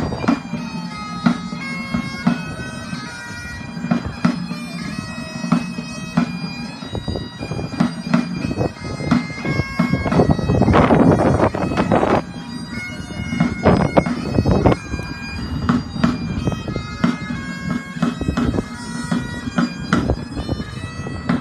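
Highland bagpipes playing a tune over their steady drones.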